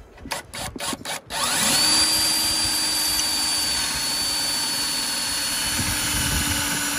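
Cordless drill boring a pocket hole into plywood with a stepped bit through a Kreg pocket-hole jig. A few clicks come first, then about a second and a half in the motor winds up to a steady high whine as the bit cuts.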